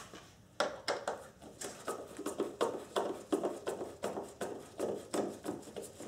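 Hand tool clicking steadily, about two to three clicks a second, as the screw holding a side combination lamp is undone.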